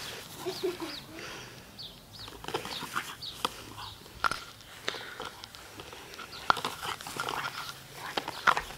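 Dog making short cries during play, among scattered clicks and knocks.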